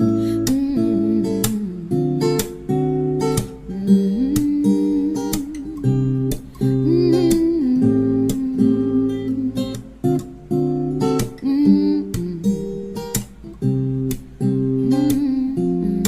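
Background music: an acoustic guitar strumming chords in an instrumental passage between sung lines.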